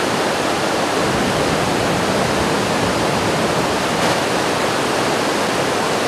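Steady rush of a fast, shallow river running over rocks and rapids.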